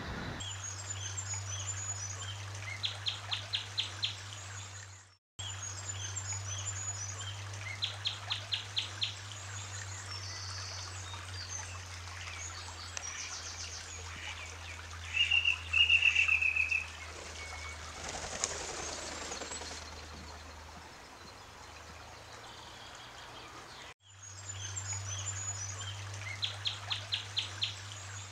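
Small birds chirping and calling, with quick runs of high notes, over a steady low hum. A louder burst of chirps comes about halfway through. The sound drops out briefly twice, and the birdsong after the second dropout repeats the opening stretch.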